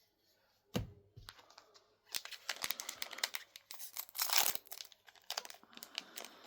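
Wrapper of a trading-card booster pack crinkling and being torn open. There is a sharp click about a second in, then a couple of seconds of dense crackling tearing, loudest near the middle.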